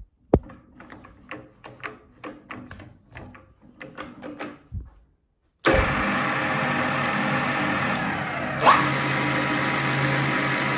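A run of light clicks and knocks, then about halfway through the Strands S32M geared-head drill press starts suddenly and runs steadily, its motor and spindle gearbox humming. A short rising whine comes about three seconds after start-up.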